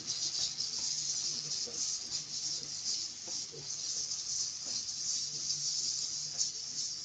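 Onion-tomato masala with ground spices sizzling steadily in hot oil in a non-stick kadai, with light scrapes of a spatula stirring it.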